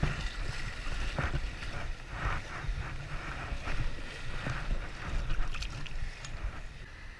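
Flood-swollen river rapids rushing and splashing around an inflatable kayak, with water and wind buffeting the microphone in an uneven, gusting rumble.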